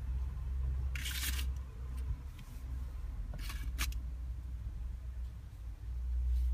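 Hands handling and unwrapping a Kinder Surprise egg: two short rustling bursts about a second and three and a half seconds in, then a sharp click, over a low steady hum.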